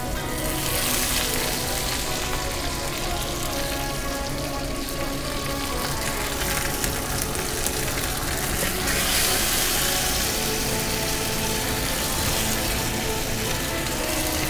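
Brown butter with hickory nuts sizzling in a frying pan as wet, freshly boiled ravioli are laid in, the sizzle swelling about a second in and again around nine seconds. Background music plays underneath.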